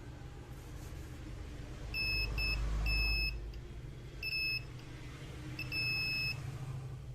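A multimeter's continuity buzzer beeps five times at one high pitch, in uneven short and longer bursts, as the probes touch points on a phone's circuit board. Each beep signals a low-resistance path between the probes.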